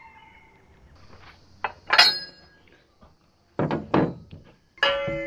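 Metal hardware and hand tools clinking and knocking against a steel loader-arm mounting bracket, with one sharp ringing clink about two seconds in and a few duller knocks after it. Plucked-string music starts near the end.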